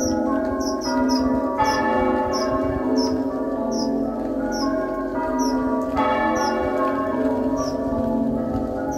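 Church bells rung muffled, a continuous run of dull strokes with a few brighter ones among them. The muffled ringing is the traditional toll of mourning for the death of the monarch.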